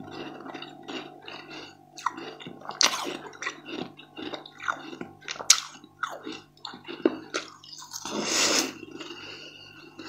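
Close-up eating sounds: irregular crisp crackles and wet clicks as a thin, translucent sheet of sweet food is bitten and handled, with a louder rustling burst about eight seconds in. A low steady hum runs underneath.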